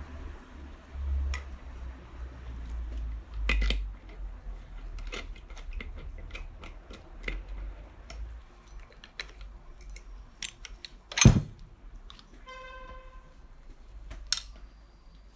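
Metal engine parts and hand tools clicking and knocking as the flywheel is taken off a Piaggio moped's two-stroke engine. A loud knock comes about two-thirds of the way through, followed by a short ringing metal tone.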